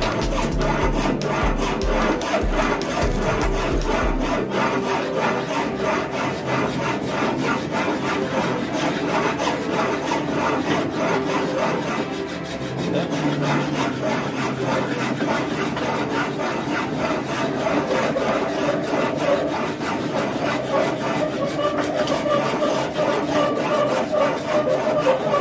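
Hand file scraping back and forth across a metal workpiece clamped in a bench vice, in repeated strokes. This is profile filing: the file is rocked forward to round a corner into a curve.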